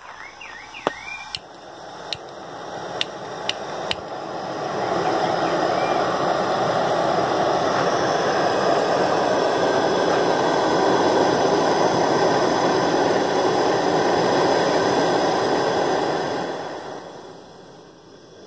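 Small portable gas stove being lit: five sharp igniter clicks, then the burner catches and hisses steadily under a kettle. The hiss fades away near the end.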